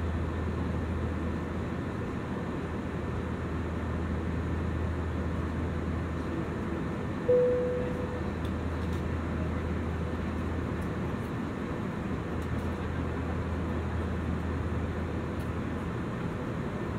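Steady in-flight cabin noise of an Airbus A320-200ceo: the engine and airflow drone, with a low hum underneath. About seven seconds in, a single cabin chime rings out and fades within a second.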